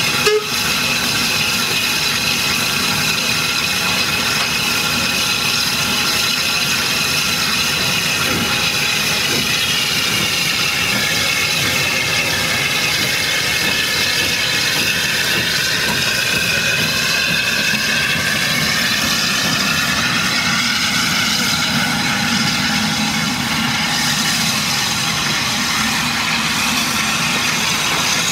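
J94 0-6-0 saddle-tank steam locomotive 68030 moving slowly: a steady hiss of steam and running noise at an even level, with one sharp click just after the start.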